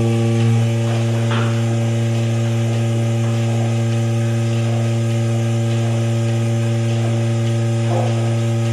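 Goat milking machine running with a loud, steady, unchanging electric hum while its teat cups are on the udders.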